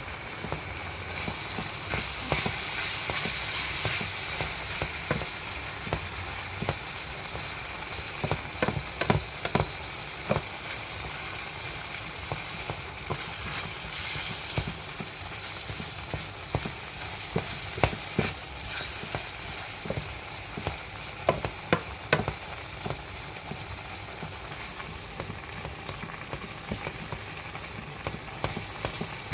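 Food sizzling steadily in a frying pan while being stirred, with a cooking utensil knocking and scraping against the pan in clusters of sharp clicks.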